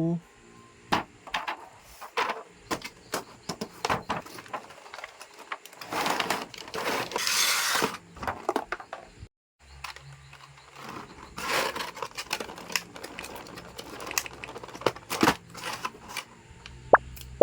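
Hands handling and unpacking plastic toys: scattered clicks and taps, with longer stretches of plastic packaging rustling and crinkling about six seconds in and again around eleven seconds.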